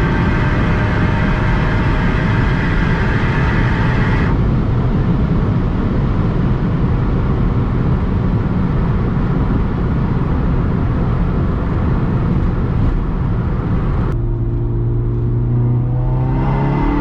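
Inside the cabin of a tuned big-turbo SEAT Ibiza Cupra at about 230 km/h: the engine pulls under load for about four seconds, then the throttle closes and wind and tyre rush take over as the car slows hard. Near the end the engine settles to a steady low drone at much lower speed, then starts rising in pitch as it accelerates again.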